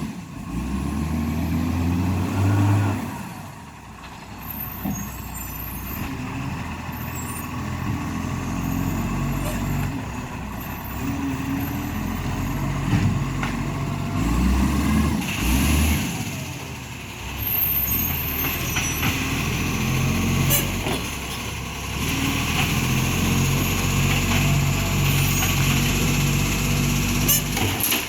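Iveco ACCO garbage truck's diesel engine running, its note rising and falling as the truck works, with short hisses of air from the brakes; the truck has a leaking exhaust.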